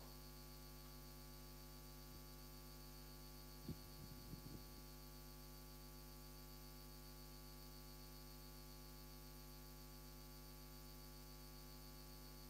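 Near silence over a steady electrical mains hum in the sound system. About four seconds in come a few soft knocks, from the microphone and its stand being handled and set up.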